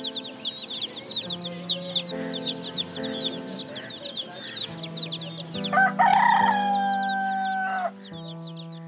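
A crowd of day-old chicks peeping rapidly and continuously, many short falling chirps overlapping, over a soft music bed. Near the end a loud held tone cuts across for about two seconds, and the peeping then dies away.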